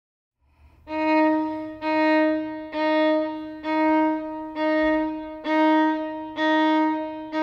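Solo violin bowing the same single note over and over, about once a second, each stroke swelling and then fading, in imitation of a telephone busy signal.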